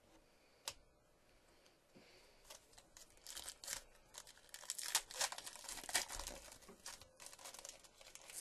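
Foil wrapper of a Topps Finest baseball card pack being torn open and crinkled by hand: a single sharp click about a second in, then a long stretch of crackling rips, loudest in the middle.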